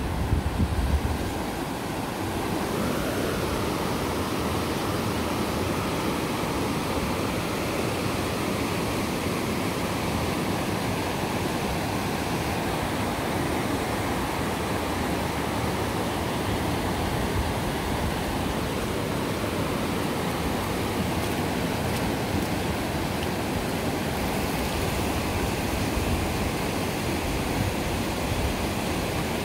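Steady, even rushing noise of typhoon weather, wind and water, with no break or change, and a brief low rumble in the first second.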